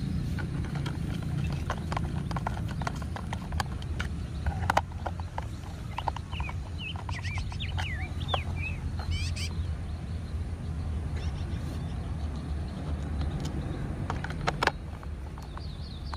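Plastic toy-car parts clicking and knocking as they are handled and fitted together, with two sharper knocks, one about five seconds in and one near the end, over a steady low hum. A bird chirps several times in the middle.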